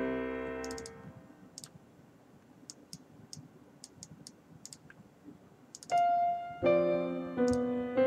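Background piano music: a chord dies away, then a few seconds of faint, sharp computer-mouse clicks, and piano music starts again about six seconds in.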